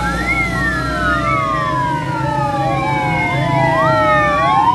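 Several sirens of a passing convoy of police and emergency vehicles wailing out of step with one another, each a quick rise and a long fall in pitch. Vehicle engines rumble steadily underneath.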